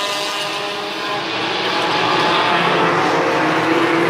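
Several race car engines running around the track together, their pitches shifting as the cars accelerate and pass, growing louder about halfway through.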